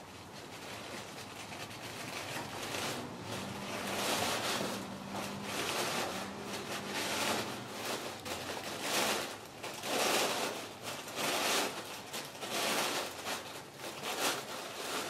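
Tissue paper rustling and crinkling in uneven swells every second or so, as the layers of a folded tissue-paper flower are pulled apart and fluffed by hand.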